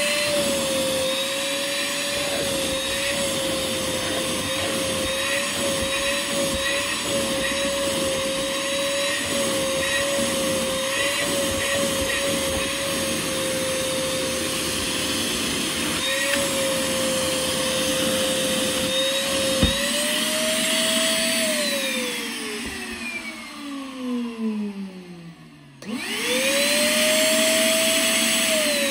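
Small wet/dry shop vac running steadily as it extracts cleaning solution from carpet, its pitch wavering slightly as the nozzle works. About two-thirds through there is a click and the motor's pitch jumps up, then it is switched off and winds down. It is started again near the end, rises to the same higher pitch, and starts to wind down again; the tank has taken in too much solution.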